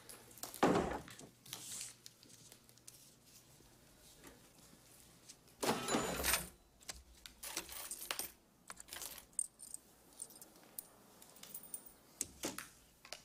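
Loose coins jingling and clinking on a shop counter as a 50-cent payment for a soda is handed over. They come in a few separate bursts: the longest about six seconds in, then a scatter of small clinks and clicks.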